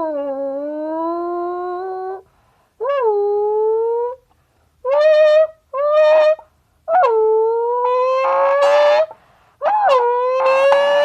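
Folded aluminium drink can used as a noisemaker to imitate a Lamborghini engine revving. There are six buzzy pitched tones with short gaps between them. Most rise in pitch like an engine climbing through the revs, and the last two carry a breathy rasp.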